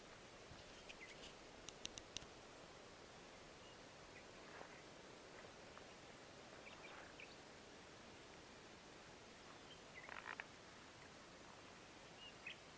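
Faint birds calling from the riverbank: a few short chirps and calls scattered through a quiet background hiss.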